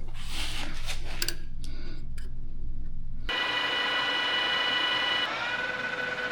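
Metal lathe machining: a low motor hum with intermittent scraping of the tool cutting. About three seconds in it changes abruptly to a steady high motor whine, which drops slightly in level and pitch about two seconds later.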